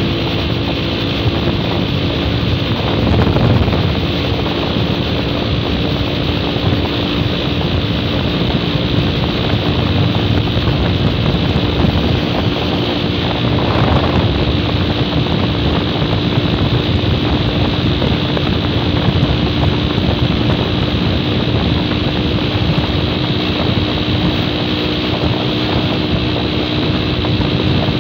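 Motorcycle engine running at a steady cruising speed, with heavy wind noise on the microphone.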